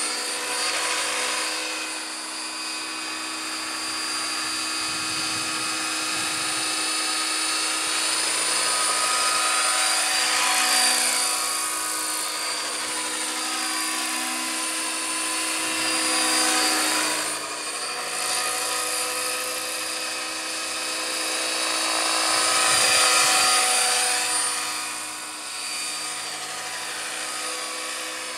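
Radio-controlled scale Bell LongRanger helicopter on an Align T-Rex 600 flying: a steady, high-pitched whine of motor and rotor blades. The whine swells louder and sweeps in pitch as the helicopter passes close, about 11 and 23 seconds in.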